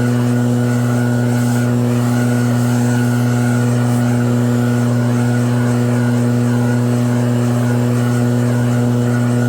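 EB7660RED snow blower running steadily at constant speed, one even pitch with no rise or fall.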